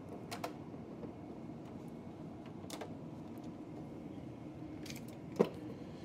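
Scattered light clicks and knocks as a plastic condensate pump and its wiring are handled, the sharpest one near the end, over a steady low hum.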